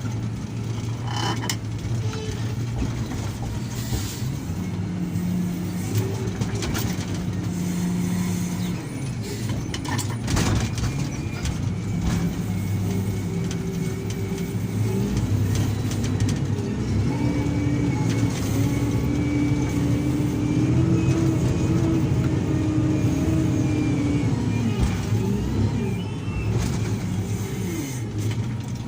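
Diesel engine of heavy earthmoving machinery running under load, its pitch rising and falling as it works, with a few sharp knocks.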